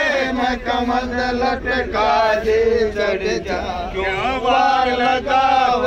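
A group of men singing together in chorus, a chant-like song with long held notes that rise and fall, over the train's steady low rumble.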